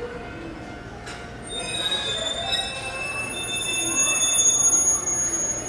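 Train wheels squealing against the rails as a train moves slowly along the neighbouring platform track. Several high, shrill tones set in about a second and a half in and grow louder toward the end, over a low rumble.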